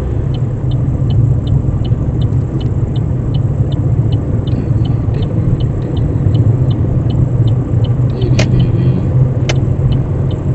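Cabin noise of a high-mileage car driving at speed: a steady, loud engine and road rumble, with the indicator ticking about three times a second. Two sharp clicks come near the end.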